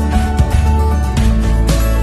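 Background music with held notes over a heavy bass line and a beat.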